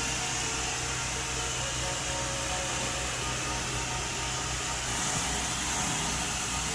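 A pressure washer running steadily: the engine's low drone under a constant hiss of high-pressure water spray, the hiss shifting slightly about five seconds in.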